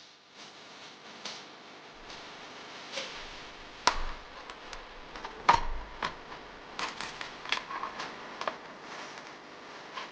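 Scattered small clicks and knocks of objects being handled at close range, with two louder, sharper knocks about four and five and a half seconds in.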